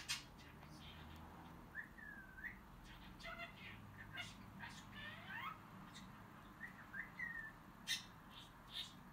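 Faint crackling and clicking of organza ribbon and thin wire as they are twisted together by hand. A few short, high, gliding calls from an animal are heard about two seconds in, around five seconds in and near seven seconds.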